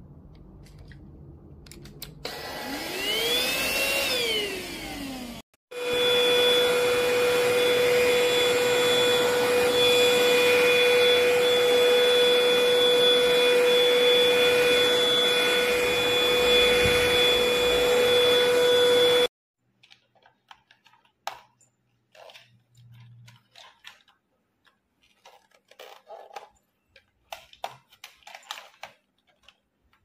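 Cordless stick vacuum's brushless motor spinning up and winding back down, then after a break running steadily at full suction with a constant high whine for about thirteen seconds before cutting off abruptly. Only faint clicks and handling noises follow.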